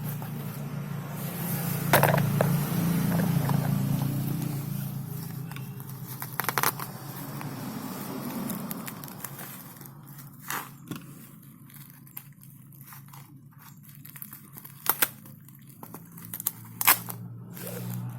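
Packaging being handled and opened by hand: scraping and crinkling, with a few sharp clicks and knocks spread through it.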